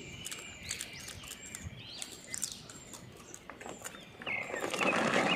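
Small birds chirping over and over in short, high, arching calls. About four seconds in, a louder rustling joins them.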